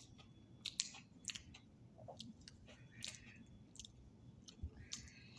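Faint chewing of a Dirt Cake creme Oreo cookie, heard as irregular small clicks and soft crunches from the mouth.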